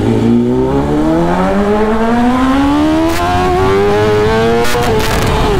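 Suzuki Hayabusa's inline-four engine pulling hard under full throttle, its note rising steadily for about four and a half seconds, then dropping at a gear change near the end.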